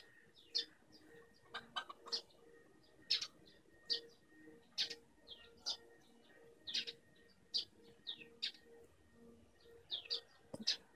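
A hen pecking grain feed from a bare palm: sharp beak clicks on the grain and hand, irregular, about one or two a second, with a faint steady tone underneath.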